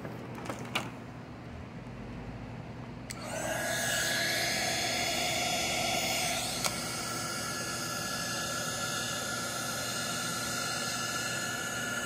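Electric heat gun switched on about three seconds in and running steadily, a fan whir with a high whine and hiss, blowing hot air to shrink heat-shrink tubing over a freshly soldered wire joint. A couple of light handling clicks come before it.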